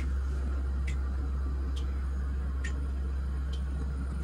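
Light ticking, five evenly spaced ticks a little under a second apart, over a steady low hum.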